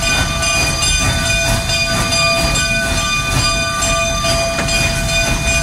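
Cab of Rio Grande K-36 No. 484, a narrow-gauge 2-8-2 steam locomotive, under way: a loud steady rumble and rattle with regularly repeating exhaust beats, over a steady high whine.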